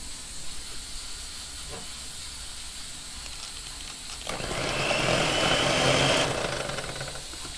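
Electric hand mixer running for about two seconds, starting a little past halfway, its beaters whisking cream cheese and cream in a metal bowl.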